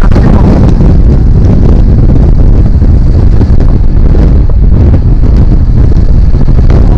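Loud wind buffeting on the microphone of a motorcycle riding at road speed, covering the bike's running engine.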